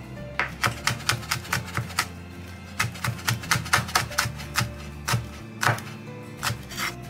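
Large kitchen knife chopping red chilies on a wooden cutting board: quick runs of sharp taps, about four or five a second, with a short pause just past two seconds in and a few slower strokes near the end.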